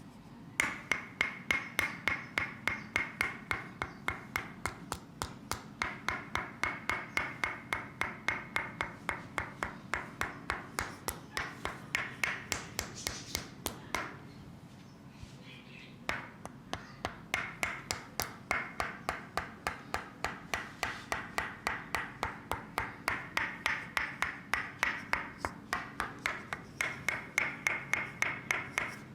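Rapid, even tapping, about four taps a second, each with a slight ring; it stops for about two seconds halfway through, then resumes.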